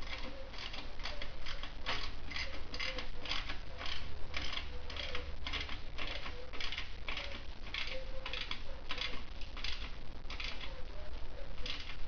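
A run of short rasping clicks, about two a second and unevenly spaced, with no engine running.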